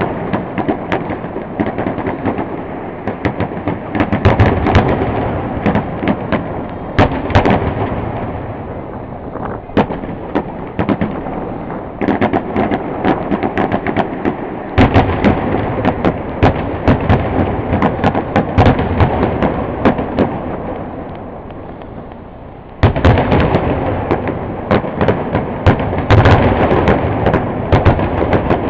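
Fireworks grand finale: a dense barrage of shells bursting in rapid succession, sharp reports over a continuous rolling rumble, swelling in waves and easing briefly before a fresh, louder salvo about 23 seconds in.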